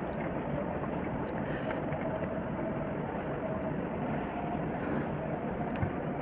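Fingers mixing and squishing cooked basmati rice with curry on a steel plate, with a few faint clicks, under a steady background hiss that is the loudest thing heard.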